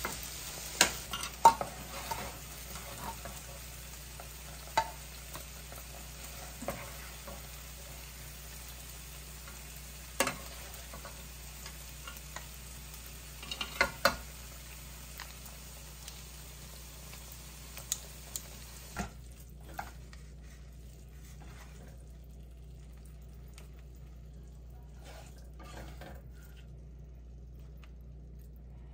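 Food sizzling in a frying pan, with scattered sharp clanks of a utensil against the pan. The sizzling stops about two-thirds of the way through, leaving only a few faint clicks.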